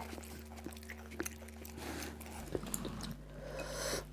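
Soft handling sounds of a fuchka (pani puri) shell being filled with mashed potato by hand, with a few light taps and clicks. Near the end comes a short watery swish as the filled shell is dipped into the bowl of spiced water.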